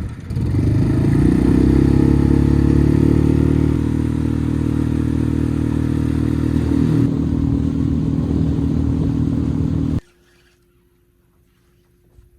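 Boat's outboard motor running under way: it picks up revs about a second in, then holds a steady drone, and cuts off suddenly near the end.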